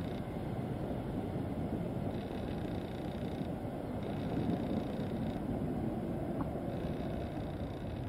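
Jet airliner's engines at takeoff thrust, a steady low rumble as it lifts off and climbs away, swelling slightly about halfway through.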